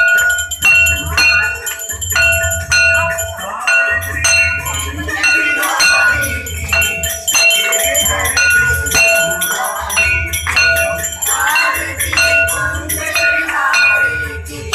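A hand bell (aarti ghanti) rung over and over, its clear ringing tone struck in quick repeated strokes, over devotional music with a pulsing low beat.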